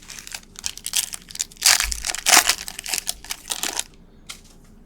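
A foil trading-card pack wrapper being torn open and crumpled: a rapid crinkling crackle, loudest in the middle, that stops about a second before the end.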